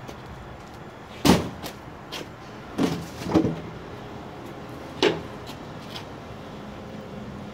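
Four hard bangs about a second or two apart, with a few smaller knocks between them, like something being struck or forced.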